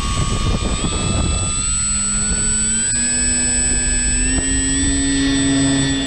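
Electric motor and propeller of a Tower Hobbies ASW 28 RC glider whining at full power, the pitch stepping up in stages as the throttle is advanced for a hand launch. Wind rumbles on the microphone underneath.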